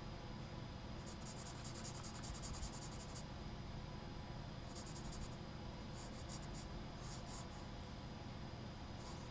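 Charcoal pencil scratching on sketchbook paper in runs of quick short strokes: a longer run about a second in, then several brief bursts with pauses between them.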